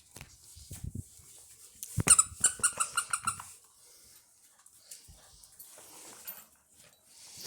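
Labrador puppies scuffling as they play-fight, with a quick run of short, high-pitched yelps about two seconds in.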